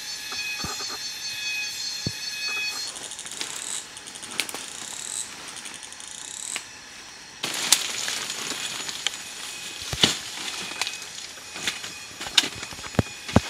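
Leaves and stalks rustling as a person pushes through dense forest undergrowth, with several sharp cracks in the last few seconds as plant stems are snapped. High steady insect or bird tones ring through the first few seconds, then give way to gliding whistles.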